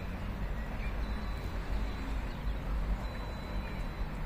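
Wind buffeting the microphone as a steady low rumble, with a few faint bird chirps over it.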